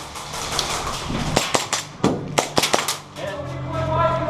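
Airsoft guns firing: a quick run of about eight sharp snapping shots between about one and three seconds in. Near the end a held, pitched sound comes in.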